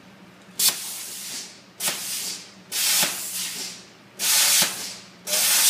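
Plasma cutter cutting in five short bursts, each a sudden hiss of arc and air lasting under a second, over a low steady hum.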